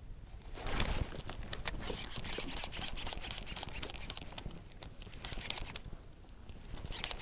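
A hooked largemouth bass being fought and reeled toward a kayak: irregular splashing and sharp clicks, starting about a second in and easing off for a moment near the end.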